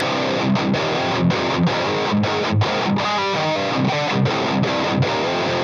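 Washburn Parallax electric guitar tuned to drop C, played through a Marshall Vintage Modern 2466 100-watt valve head with the distortion on. A heavy, choppy riff with many brief stops between chords.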